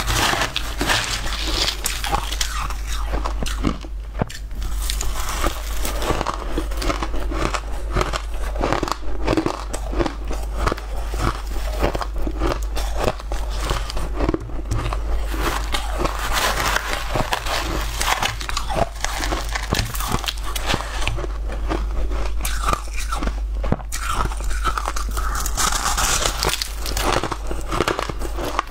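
Close-miked chewing of frozen white-and-blue crushed ice: dense, crisp crunches one after another with hardly a pause, over a steady low hum.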